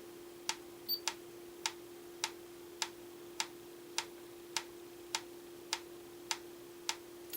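Franz FB-4 electric metronome ticking evenly, sharp clicks about 0.57 s apart: roughly 104 beats a minute, a little slow against its setting of 112. A steady faint hum sits under the ticks.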